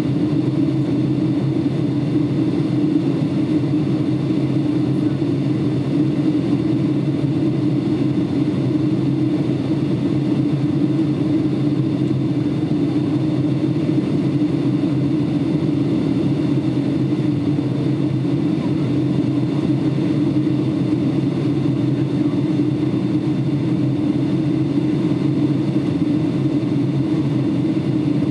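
Steady cabin noise inside a Boeing 757 in flight on its descent: a constant low drone of engines and rushing airflow, with faint steady high tones above it.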